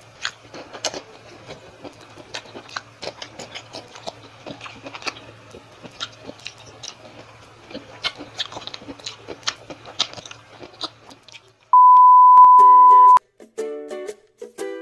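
Close-miked eating of fried milkfish (bangus): crisp bites, chewing, and wet mouth clicks and smacks over a faint low hum. About twelve seconds in, a loud, steady, single-pitched beep sounds for about a second and a half, and then ukulele music begins.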